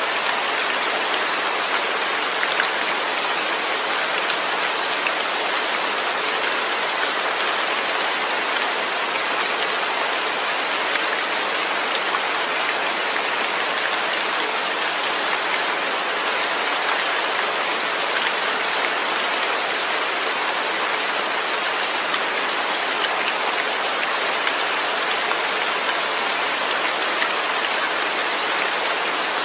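Steady rain, an even hiss flecked with fine scattered drop ticks, with no thunder.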